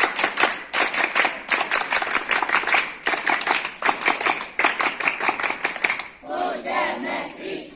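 A group clapping fast and hard in a steady rhythm while voices chant along, the clapping stopping about six seconds in; a single voice calls out near the end.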